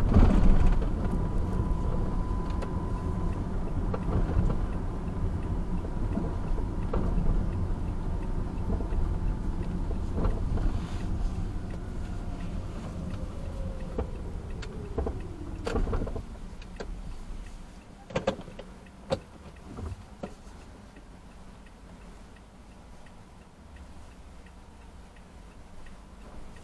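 A car driving through city streets, heard from inside the cabin: steady engine and road noise that dies down about 16 seconds in as the car slows to a stop. A falling whine comes with the slowdown, followed by a few sharp clicks.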